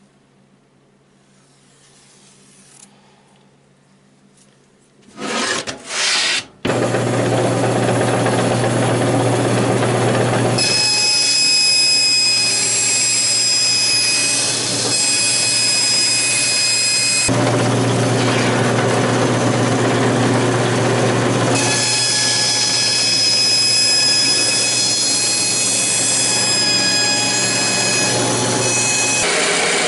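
After a few quiet seconds, a bandsaw starts up about five seconds in and runs steadily with a low motor hum. Twice, for several seconds each, its blade cuts along a marked circle in a white plastic sheet, adding a high whine over the running saw, with a short pause between the cuts.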